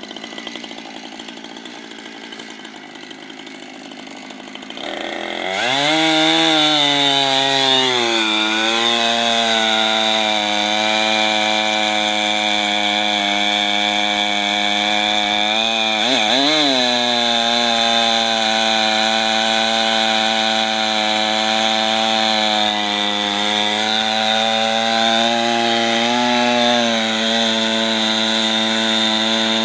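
Husqvarna 460 Rancher two-stroke chainsaw revving up about five seconds in and cutting into a solid oak log. Its engine pitch sags as the chain bites, then holds steady under load with a high chain whine, dipping briefly twice. The opening seconds carry a quieter engine sound before the rev.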